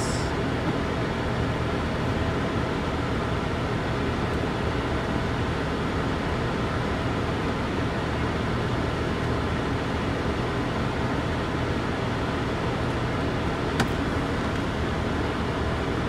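Steady running hum of a 1998 Lexus GS300, heard from inside the cabin. A single sharp click comes near the end.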